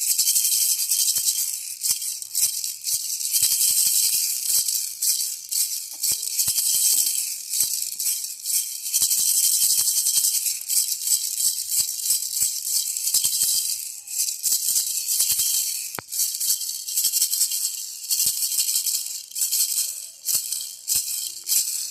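Baby rattle shaken continuously, a bright, hissing rattle of loose beads in quick uneven shakes that swell and ease every second or two.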